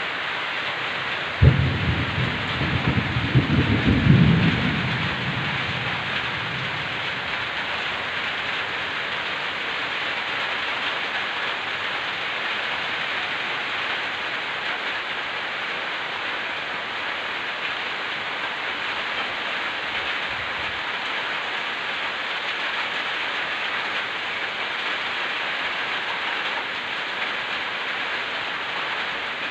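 Heavy rain with a steady hiss. About a second and a half in, a thunderclap breaks sharply, then rumbles with a second swell a couple of seconds later before fading away.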